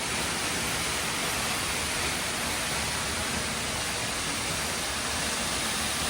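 South Falls, a large waterfall, rushing steadily and close by: an even, unbroken roar of falling water.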